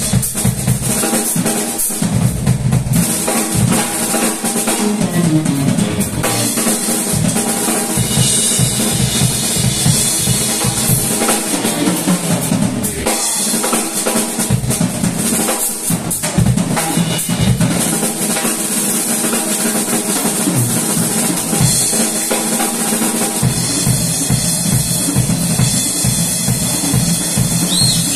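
Live band playing an instrumental jam, with the drum kit's kick and snare well forward over electric guitars, bass guitar and a Korg keyboard.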